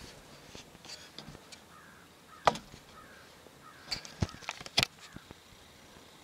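Crows cawing faintly, with several sharp clicks and knocks close to the microphone; the loudest come about two and a half seconds in and just before five seconds.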